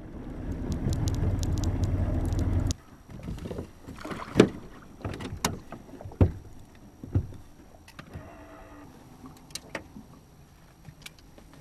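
A low rumble that cuts off suddenly about three seconds in. Then scattered knocks and thumps on a bass boat's deck as the angler moves about and handles his tackle, the loudest two about four and six seconds in.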